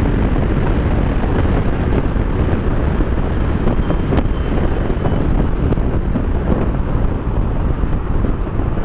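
Loud, steady wind rush over the microphone of a Bajaj Dominar 400 ridden at high speed near its top speed; the wind buries the engine sound.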